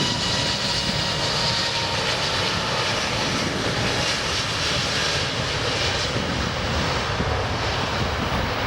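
Jet engine noise from a British Airways Airbus A380, a steady rumble with thin whining tones that fade over the first couple of seconds. Wind buffets the microphone.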